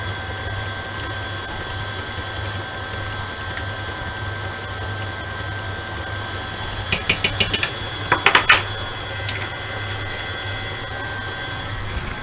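Stand mixer motor running steadily while it beats cheesecake batter. About seven seconds in come a quick run of light clicks, then a second run a second later.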